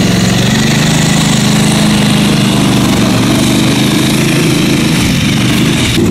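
Small gasoline engine of a tree-cutting power tool running steadily, with a brief dip near the end.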